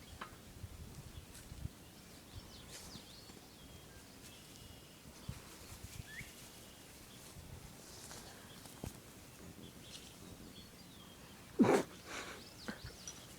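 Quiet outdoor background with a few faint bird chirps, broken once near the end by a single short, loud sound.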